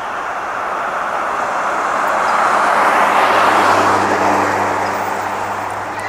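A car passing by on the street: tyre and engine noise swells to a peak about three to four seconds in, with a low engine hum, then fades away.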